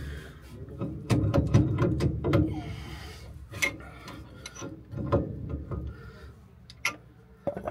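Metal parts of a van's rear wheel hub being handled: scattered clinks and knocks with some rubbing and scraping.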